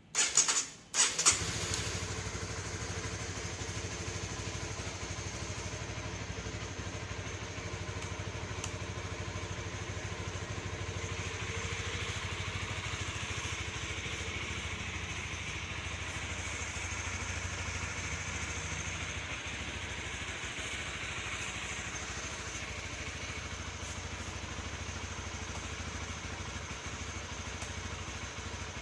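Honda CB150R's 150 cc DOHC single-cylinder engine started on the electric starter: two short loud bursts, with the engine catching about a second in and then idling steadily on the stock muffler.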